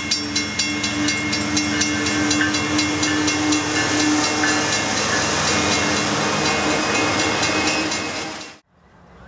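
Canadian Pacific diesel locomotives and autorack cars of a freight train passing close by at speed: wheels clicking rapidly over the rail joints above a steady low tone and loud rumbling noise. The sound cuts off abruptly near the end, giving way to quieter outdoor background.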